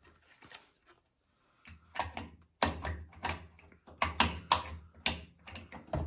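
Hard plastic clicks and knocks as the small plastic access door of a front-load washing machine is fitted back onto its front panel and snapped shut. The clicks start about two seconds in and come irregularly, several a second.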